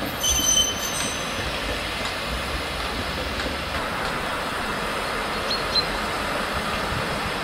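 Steam tank locomotive hauling a passenger train, running with a steady hiss of steam from its open cylinder drain cocks. There is a brief high squeal about half a second in.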